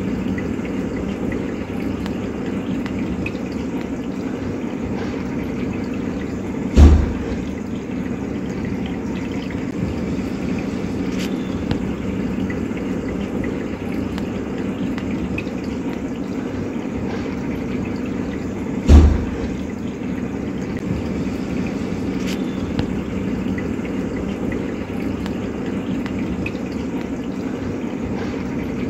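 Steady water ambience, running and trickling, with a low steady hum under it. Two loud low thuds break through, about seven and nineteen seconds in.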